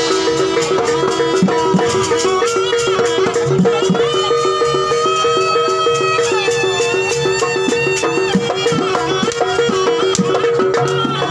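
Jaranan gamelan music played live: drum strokes and a fast, evenly repeating metallophone pattern, with a held, bending melody line over the top.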